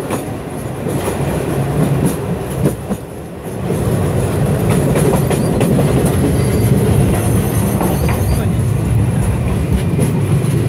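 Sóller railway train running on narrow-gauge track: a steady low rumble of wheels with scattered clicks from the rails, louder from about four seconds in.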